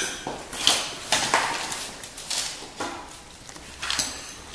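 A metal spoon clinking and scraping against a plate while pasta is served out: half a dozen sharp, separate clicks spread over a few seconds.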